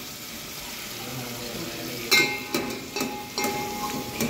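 Onion-and-spice masala sizzling as it fries in a pan while being stirred. From about halfway, a utensil knocks against the pan about five times; the first knock is the loudest and rings.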